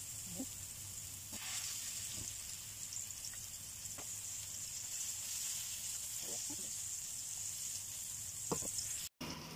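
Minced-beef kebabs sizzling steadily as they fry in a flat pan, with a light knock near the end.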